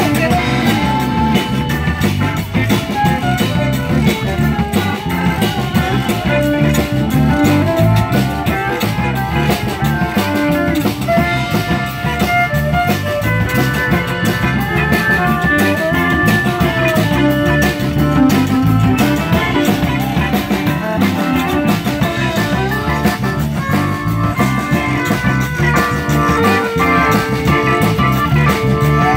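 Live zydeco band playing: button accordion, fiddle, electric guitar, bass, keyboard and drum kit, with a steady beat.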